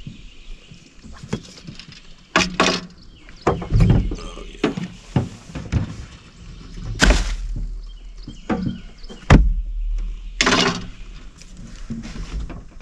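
Several irregular knocks and thumps as fish and gear are handled in a small fishing boat, against a low rumble.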